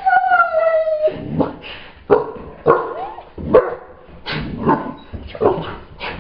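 Doberman pinscher gives a drawn-out, slightly falling howl that ends about a second in. It is followed by a run of about eight short barks spaced roughly half a second to a second apart.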